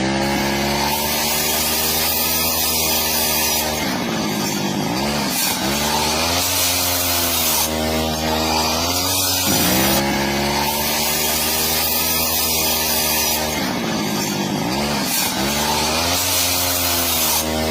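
A motor-driven power tool, chainsaw-like, running steadily. Its pitch dips and recovers twice, as a motor does when it bogs under a cut, and the whole pattern repeats about every nine and a half seconds, as in a looped recording.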